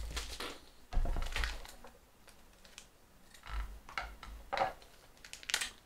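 Scissors snipping and clear plastic packaging crinkling as a small package is cut open, with scattered light clicks of small parts being handled on a wooden tabletop.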